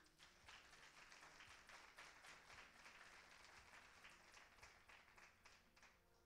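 Faint audience applause, many hands clapping. It swells quickly at the start and thins out near the end.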